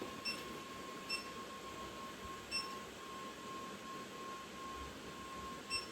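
Four short electronic beeps at irregular intervals, over a faint, steady high-pitched hum.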